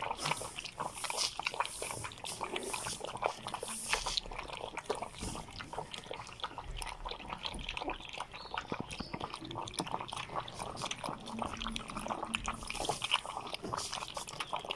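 Three puppies lapping milk from a shallow plastic tray: a rapid, uneven stream of wet laps and clicks of tongues in liquid.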